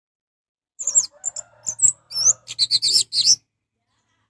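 Orange-headed thrush in full song: about a second in, a quick run of short, high whistled and chattering notes, gliding up and down, lasting about two and a half seconds.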